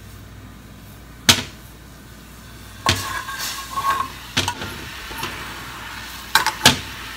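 A metal spoon stirring sugar into water in a hammered aluminium saucepan to dissolve it: about five sharp metal-on-metal clinks spread through the seconds, with some scraping and a brief faint ring about three seconds in.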